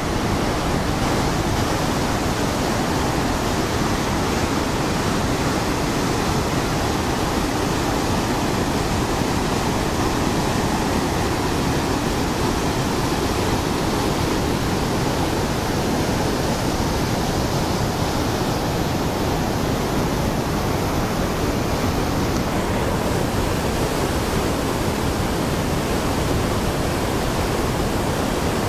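Mountain river rushing over boulders in white-water rapids: a steady, loud rush of water.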